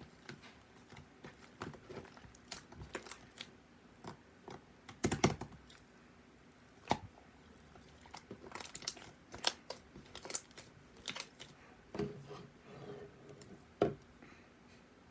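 Slime being handled and pressed, giving irregular sticky clicks and crackles, with a louder cluster of pops about a third of the way in.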